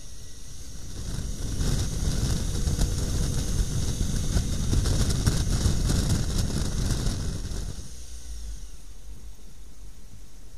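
Motorcycle riding with its engine running under heavy wind rush over the bike-mounted microphone. The rush swells about a second and a half in, buffeting and loudest through the middle, then drops back quieter near the eight-second mark.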